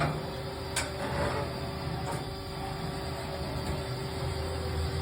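Haas SL-30 CNC lathe jogging an axis: a steady drive hum with a little rattle from the sheet-metal covers. Two light clicks come about a second and two seconds in.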